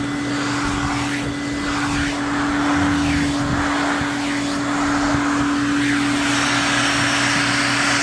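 Vacuum cleaner running with a steady hum and a rush of air that rises and falls as its nozzle is drawn through a long-haired dog's coat.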